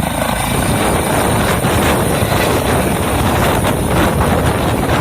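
Helicopter in flight: rotor blades chopping in rapid low beats over a thin, steady high whine, loud and unbroken, cutting off suddenly just after the end.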